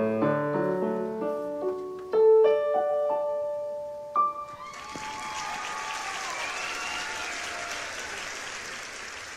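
Electronic keyboard in a piano voice playing the last few notes of a piece, the final note ringing out about four seconds in. Then applause.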